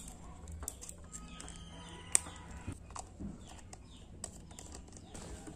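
Plastic screw cap being twisted off a Brother BT5000C ink bottle: small clicks and handling rustles, with one sharp click about two seconds in.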